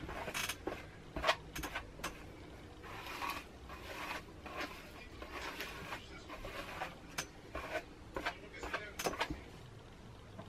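Hairbrush pulled through long hair: irregular soft swishes and rustles, with small clicks of handling in between.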